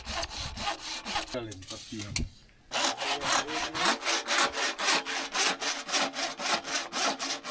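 Hand saw cutting with fast, even back-and-forth strokes, about four a second, with a short pause about two seconds in; the sawing stops abruptly near the end.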